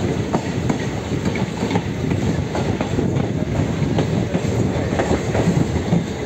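Passenger train rolling along, heard from the open doorway of a coach: a steady low rumble of the wheels with frequent irregular clicks as they pass over the rail joints.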